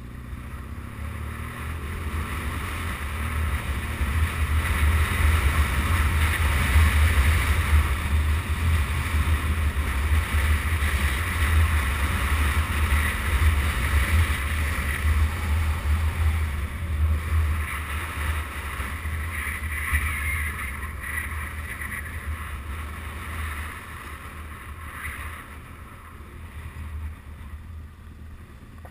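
Motorcycle riding on a gravel road: wind buffeting the camera's microphone over the engine and tyres. It grows louder over the first several seconds as speed builds and eases off near the end as the bike slows.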